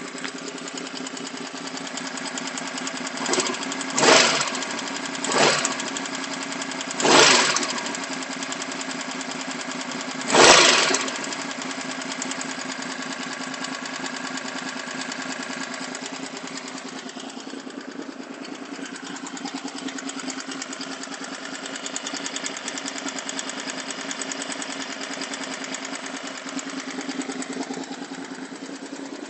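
1986 Honda VFR750F V4 engine idling with a fast, steady ticking from the valve train, plus five brief throttle blips in the first eleven seconds or so. The tick is new on this engine, and 12 of its 16 valves were found with clearances tighter than recommended.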